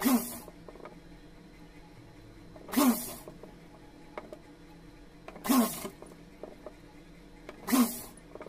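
Sewing machine running in four short bursts of a few stitches each, about two and a half seconds apart, as each pleat of a net frill is stitched down, with faint ticks of fabric handling in between.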